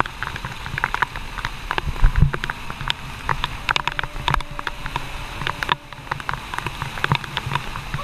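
Waterfall spray pelting a wet camera close up: a rapid, irregular crackle of drops striking the camera over the steady rush of falling water.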